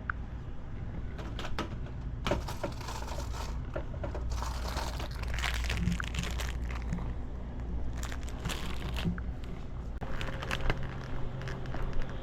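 Packaging crinkling and rustling in several bursts as items are handled, over a steady low hum.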